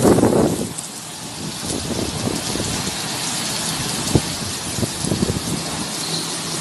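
Heavy hurricane rain pouring and pattering on the street and nearby surfaces, a dense steady hiss full of small ticks, with a louder surge in the first half second.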